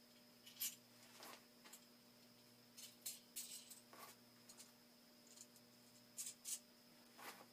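Faint, scattered clicks and scrapes of small metal hardware, bolts and nuts, being handled, about a dozen soft ticks spread irregularly, over a steady electrical hum.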